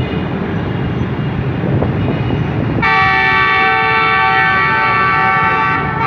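Approaching locomotive's horn sounding one long blast of about three seconds, starting about three seconds in, over a steady low rumble.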